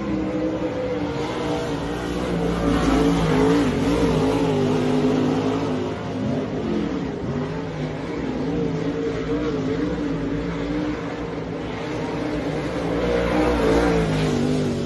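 Two dirt-track race car engines running at speed around the oval. Their pitch rises and falls as the drivers lift and get back on the throttle through the turns. The sound swells as the cars come close, about two seconds in and again near the end.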